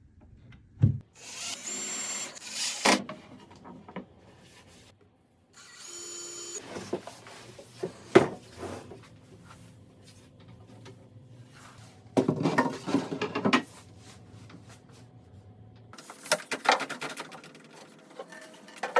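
A power drill runs in two short bursts with a steady high whine. Sharp knocks on wood and bursts of scraping or handling noise come in between and afterwards.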